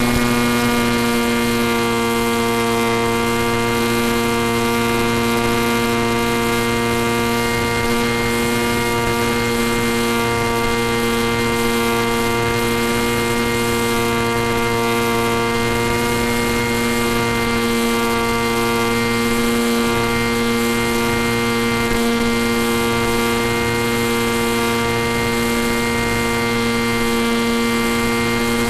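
Electric motor and propeller of a fixed-wing FPV plane running at steady throttle, heard from aboard the plane: an unchanging droning hum with a hiss of rushing air over it.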